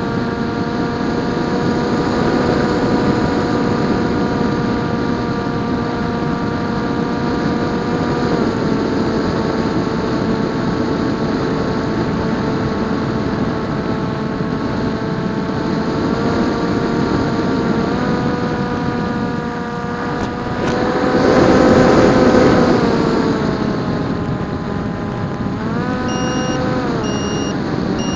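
Electric motor and propeller of a PopWing RC flying wing droning steadily in flight, its pitch stepping down and up several times as the throttle changes. About three-quarters of the way through, a louder rush of air swells and fades.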